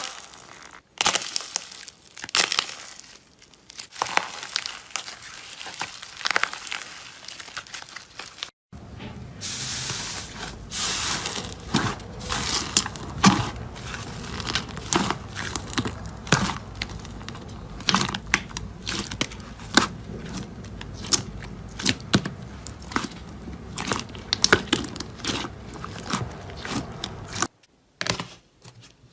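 Slime being squeezed and worked by hand, giving a dense run of sharp crackling and popping clicks. The background changes abruptly twice, about a third of the way in and near the end.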